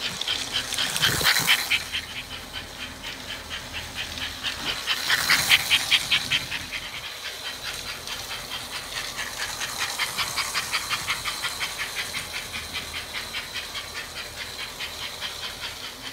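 1950s toy electric train locomotive running on tinplate track, its motor and wheels making a rapid, even clicking clatter. It grows louder twice as it comes close.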